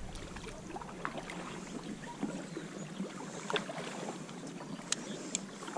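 Faint water sounds around a kayak as its paddle blade moves in calm water, with a few light clicks.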